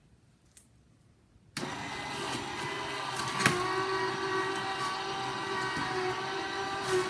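Electric juicer switched on about a second and a half in, its motor then running steadily under load as beetroot, apple and ginger are juiced. A single sharp knock sounds about two seconds after it starts.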